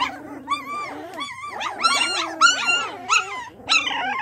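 A litter of puppies whining, several at once, in short high-pitched cries that rise and fall in pitch, loudest about two seconds in.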